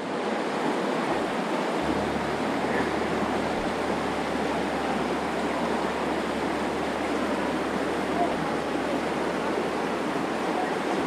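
Virgin River water rushing steadily over rocks, a constant even roar.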